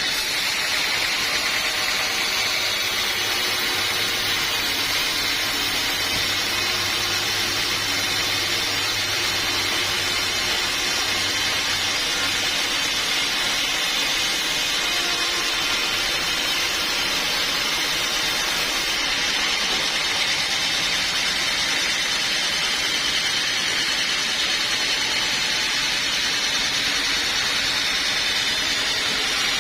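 Sawmill saw running steadily, a continuous whining hiss with a faint low hum that fades out about a third of the way in.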